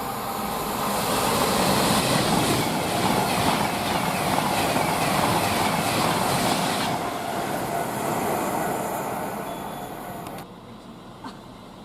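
A train passing at speed on the main line: a rushing rumble of wheels on rail that builds, holds for several seconds, then fades and drops off suddenly about ten seconds in.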